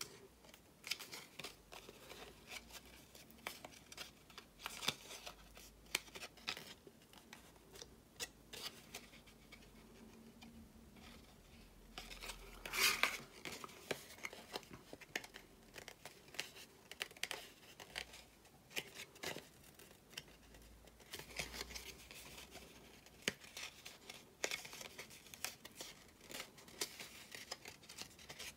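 White cardstock being bent and pressed into shape by hand: faint crinkling, scratching and small clicks of stiff paper, with a louder rustle about 13 seconds in.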